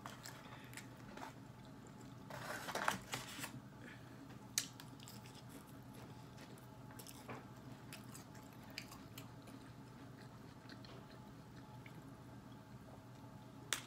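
Quiet eating: chewing, with a fork and fingers working food in a takeout tray. Scattered soft clicks, a short cluster of scraping and rustling about two to three seconds in, and a sharp click near the end, over a faint steady room hum.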